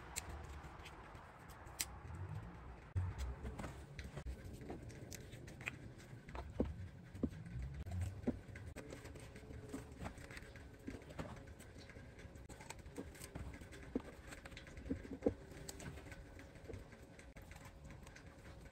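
Small plastic bottles being opened by hand: caps twisted off and seals and tabs pulled, giving scattered light clicks, crinkles and taps, with a few bottles set down on a plywood table.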